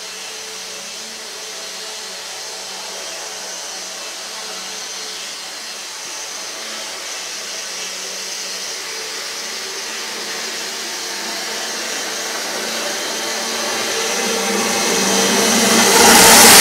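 HO-scale CSX intermodal model train running fast on the layout, a steady hum of motor and wheels on rail that grows louder as it approaches and is loudest as the locomotives reach the microphone near the end.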